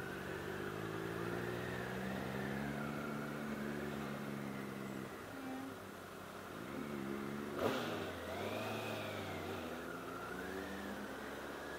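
Honda CBR1000RR Fireblade's inline-four engine running at low speed, its pitch rising and falling with the throttle. A single sharp knock about two-thirds of the way through, louder than the engine.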